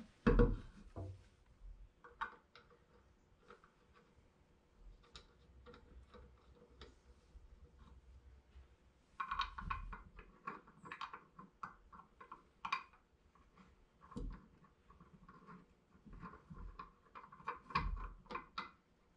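Lug bolts being started by hand through a steel wheel into a VW Beetle's hub: scattered metallic clicks and ticks as the bolts are turned and seat against the wheel, coming in clusters, with a few dull knocks, the loudest just after the start.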